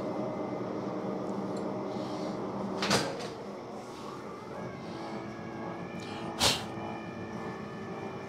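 Old Monarch engine lathe running with a steady hum and no cut under way, with two sharp clunks about three and six and a half seconds in; after the louder second clunk the spindle is stopped.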